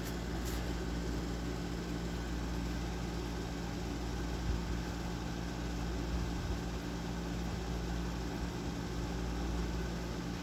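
Steady mechanical hum with a low drone and a faint tick about half a second in.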